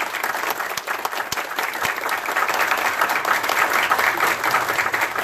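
Audience applause: many people clapping together, filling out over the first couple of seconds and then holding steady.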